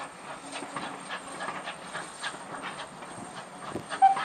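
Coaches of a heritage train rolling past, wheels clicking steadily over the rail joints. Near the end there is a sudden sharp knock, followed by a steady high-pitched tone.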